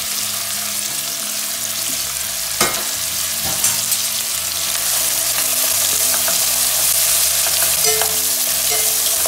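Raw sliced onions sizzling in hot oil in a stainless steel pot while being stirred with a metal utensil, with a steady hiss. One sharp knock about two and a half seconds in, and a few light ticks just after.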